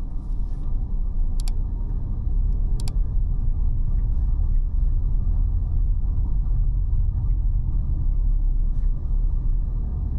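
Steady low rumble of a car driving, the road and engine noise of the moving car, with two faint clicks a second and a half apart in the first few seconds.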